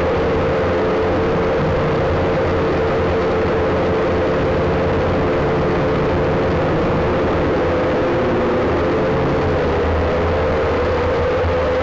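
WLtoys V222 quadcopter's four small electric motors and propellers whining steadily in flight, heard close up from the onboard camera. The pitch sags a little about eight seconds in, then rises again as the throttle changes.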